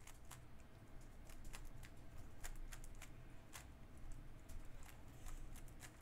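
3x3 speed cube being turned by hand: quick, irregular plastic clicks as its layers are twisted, with little gaps between.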